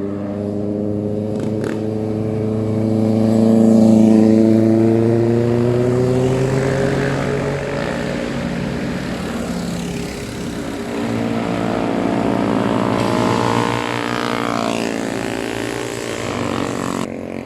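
Motorcycle engines running and revving as bikes pass by. The pitch rises and it is loudest about four seconds in, then another rise and a falling pitch comes as a bike passes near the end.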